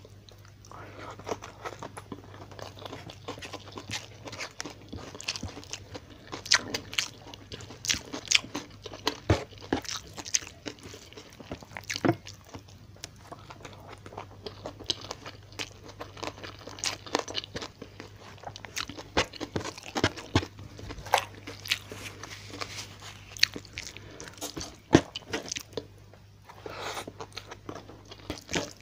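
Close-miked chewing of a mouthful of rice with fried tilapia eaten by hand, with many irregular crunches and bites. A steady low hum runs underneath.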